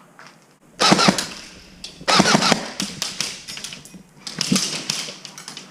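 Airsoft guns firing three bursts of rapid shots, about a second in, around two to three seconds in, and near the end.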